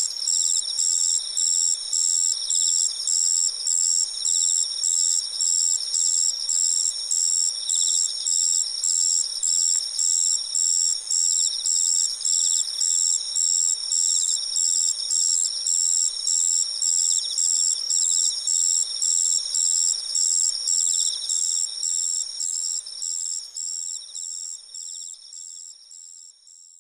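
A chorus of autumn crickets: one loud high chirping song repeating about twice a second over steadier high trills from other crickets. The recordist takes the loud one to be a madara suzu ground cricket, but is not sure. The chorus fades out near the end.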